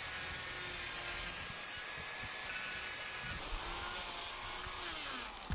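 Electric chainsaw running and cutting into old, dry apple wood, a steady whirring hiss whose motor pitch rises and then falls over the last couple of seconds.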